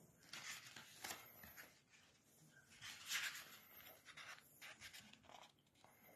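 Faint rustling of a paperback book's pages being turned by hand, in several short sweeps, the loudest about three seconds in.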